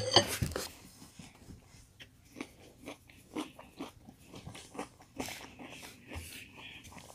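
A boy chewing a mouthful of Peach Cheerios cereal in milk, with scattered soft crunches. A sharp click comes right at the start, the loudest sound.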